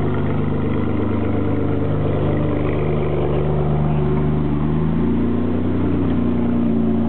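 Ferrari 599 GTB Fiorano's V12 engine running steadily through a Tubi Style exhaust. Its note steps up slightly about five seconds in.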